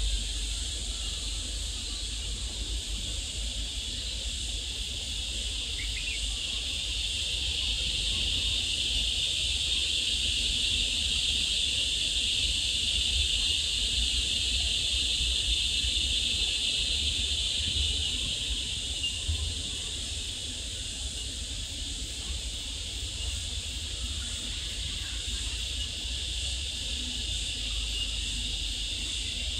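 Steady high-pitched insect chorus, getting a little louder in the middle and easing off again after about twenty seconds, over a low rumble.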